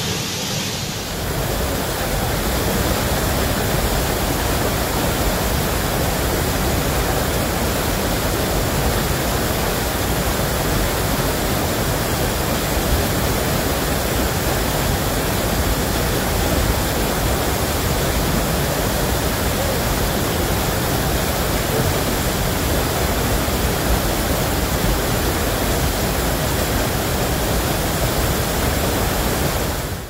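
Waterfall: a steady, unbroken rush of falling and running water.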